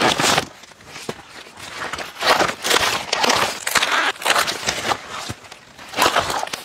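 Corn leaves and husks rustling and crackling as ears of corn are picked off the stalks by hand. The sound comes in several loud bursts.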